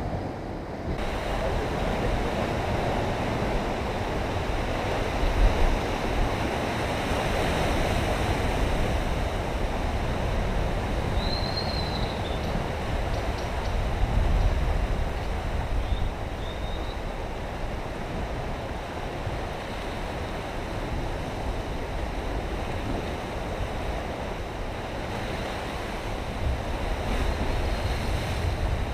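Ocean surf washing and breaking against a rocky shore in a steady rush, with wind rumbling on the microphone. There are two faint short high chirps in the middle.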